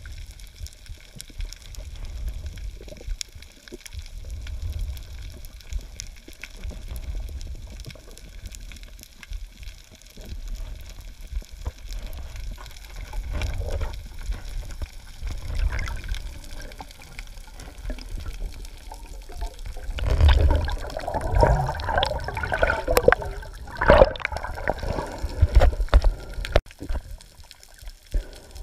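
Water moving around a camera held underwater by a swimmer: low surging pulses every few seconds, then a louder stretch of bubbling and gurgling about two-thirds of the way in.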